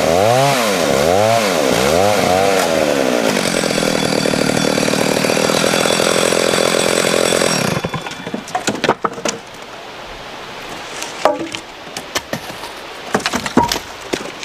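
1974 Stihl 075 AV 111cc two-stroke chainsaw cutting small logs. Its engine speed rises and falls several times, then holds high and steady before stopping sharply about eight seconds in. A few light knocks follow.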